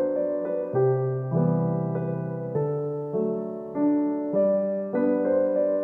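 Background music: a gentle solo piano piece playing slow chords and notes.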